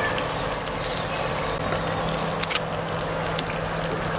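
Samosas deep-frying in hot oil: the oil sizzles and bubbles with a steady hiss and many small scattered crackles.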